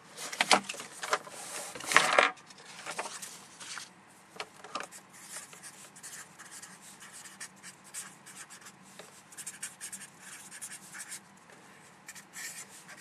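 A few loud paper rustles in the first two seconds, then a fibre-tip marker pen writing on paper: faint, irregular scratching strokes.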